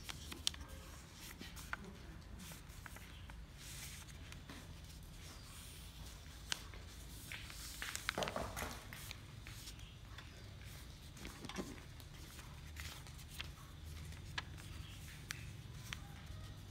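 A sheet of paper being folded and creased by hand: soft rustles, scrapes and small taps of fingers on paper, with a denser crinkly rustle about halfway through. A low steady hum sits underneath.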